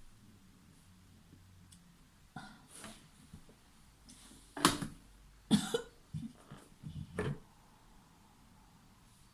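A woman coughing in a short series of coughs, loudest about four and a half seconds in, with a few softer ones before and after.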